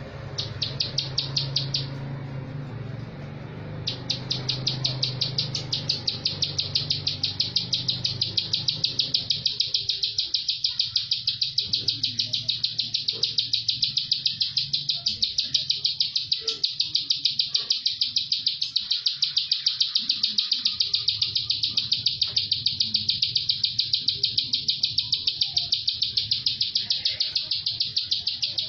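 Plain prinia singing its rapid, tightly packed song, a long unbroken run of short repeated notes, about three a second, broken once by a pause about two seconds in.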